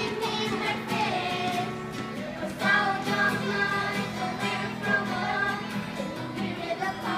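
A small group of children singing together, accompanied by an acoustic guitar.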